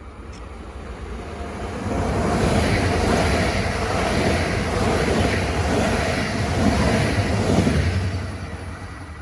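A train passing by: its running noise swells up about two seconds in, stays loud for some six seconds, then dies away.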